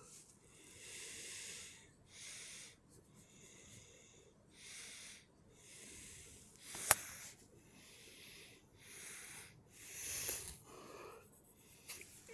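A person breathing heavily, a breath every second or so, with one sharp click about seven seconds in.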